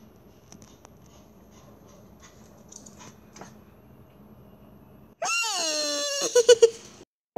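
Quiet room with a few faint ticks, then a loud, high-pitched, laugh-like sound effect that starts suddenly about five seconds in. It glides down in pitch, breaks into a few quick laughing pulses near the end, and cuts off abruptly.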